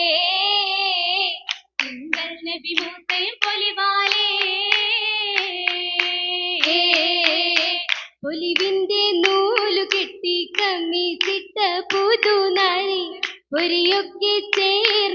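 Oppana: a girls' chorus sings a Mappila song while the dancers clap in quick rhythmic patterns. The singing is heard alone at first; the claps come in about two seconds in and keep coming in short runs.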